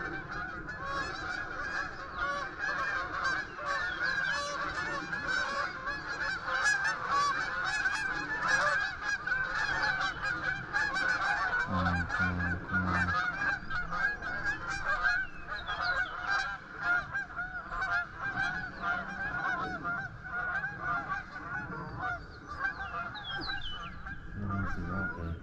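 A large flock of geese honking continuously overhead, many calls overlapping, as they circle to land.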